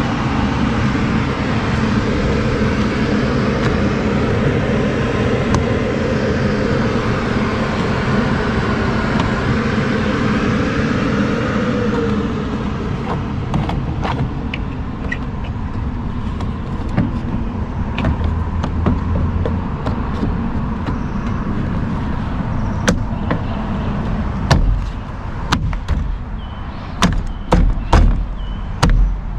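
Vehicle engine and road noise heard while moving, steady for about twelve seconds and then easing off and quieter. Toward the end come scattered sharp clicks and knocks and several heavy thumps.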